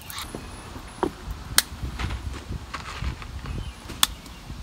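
Gloved hands working the well pump's electrical wires and wire nuts at the well head, making a few sharp plastic clicks, two of them louder (about a second and a half in and near the end), over a low rumble of handling noise.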